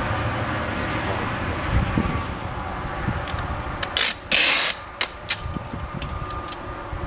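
Box tape pulled off the roll with a short loud rasp about four seconds in, among scattered clicks and taps of handling.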